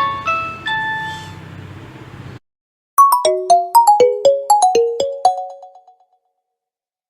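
Nokia mobile phone ringtones, one after another. One melody with a low backing fades out about two seconds in. After a short gap, a new ringtone starts with a quick run of chime-like notes that ring and die away over about three seconds.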